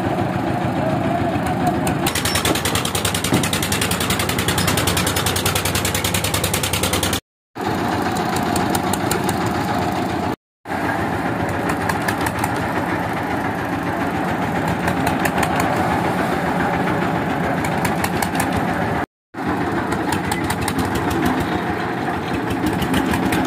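Engine of a towed concrete mixer running steadily as it mixes a batch of concrete, with an even, rapid pulsing. The sound cuts out completely three times for a moment.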